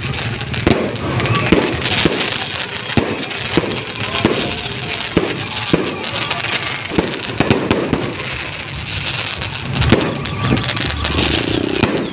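Aerial fireworks going off: an irregular run of sharp bangs, a dozen or more, with crackling from the gold spark bursts in between.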